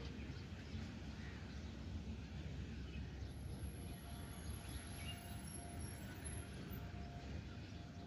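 Faint outdoor background: a steady low rumble with a few faint bird chirps.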